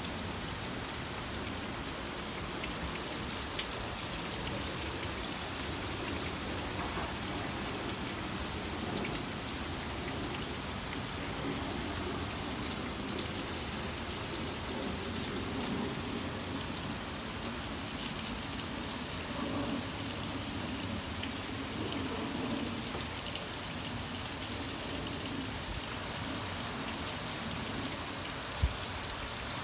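Torrential rain falling steadily on pavement and parked cars, with one brief low thump near the end.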